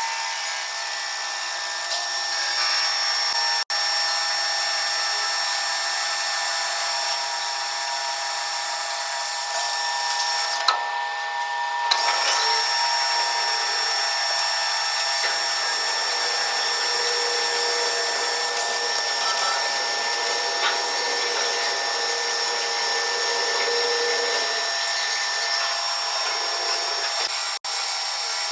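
Metal lathe running and turning a steel workpiece, a steady whine with several held tones over a cutting hiss. The sound briefly cuts out twice, once early and once near the end.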